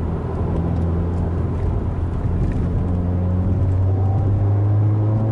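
Exhaust drone of a 2016 Subaru WRX's turbocharged FA20 flat-four with the axle-back mufflers deleted, heard from inside the closed cabin while driving. A steady low drone that climbs in pitch from about halfway through as the car accelerates.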